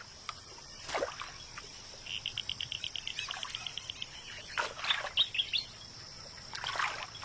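Wetland birds calling: a rapid trill of about a dozen notes a second lasting roughly two seconds, then clusters of short chirps about halfway through and again near the end, over a steady high insect-like buzz.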